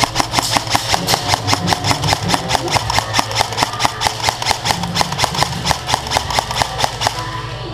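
A fast, even train of sharp clicks, about four to five a second, over background music; the clicks stop about seven seconds in.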